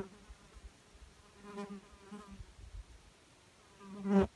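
A flying insect buzzing around the microphone, fading in and out, with one loud close pass near the end that cuts off suddenly.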